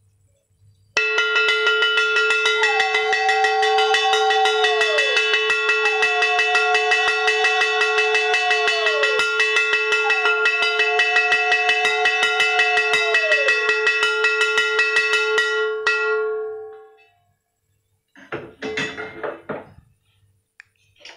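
A conch shell (shankha) blown in one long, steady note for about fifteen seconds while a hand bell rings rapidly, as at the evening puja. Three times the note slides down in pitch before settling back. It stops, and a brief clatter follows near the end.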